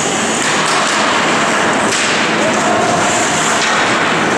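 Ice hockey play in an arena: a steady hiss of skate blades on the ice, with about three sharp clacks of sticks and puck and a held shout partway through.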